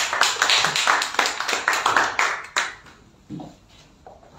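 Applause from a small group of people clapping, lasting about two and a half seconds and then dying away.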